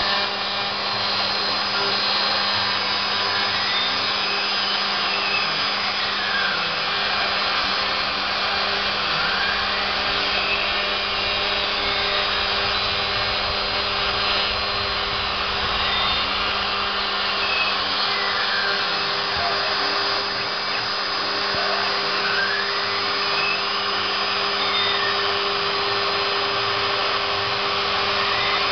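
CNC router spindle running steadily while milling PVC. Over it, a fainter whine glides down and back up in pitch every five or six seconds, as the axis motors slow and speed up on each pass.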